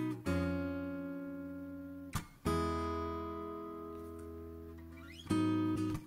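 Background music: an acoustic guitar strumming chords, three strums each left to ring and fade away.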